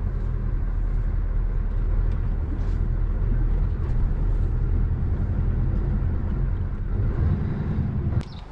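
Lorry's diesel engine running steadily, dropping away abruptly near the end, followed by a sharp click.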